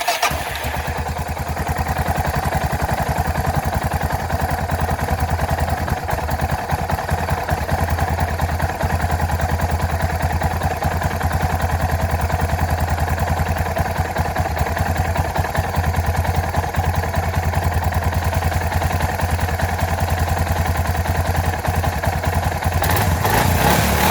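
Suzuki DR650's single-cylinder four-stroke engine starting and then idling steadily with a rapid, even pulse, rising a little near the end. It is being run briefly after an oil change, before the oil level is checked again.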